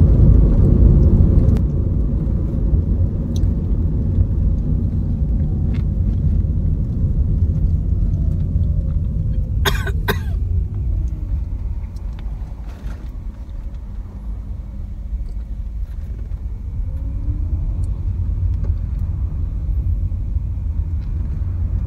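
Car interior noise on the move: a steady low rumble of engine and road inside the cabin, with a quick cluster of sharp clicks about ten seconds in.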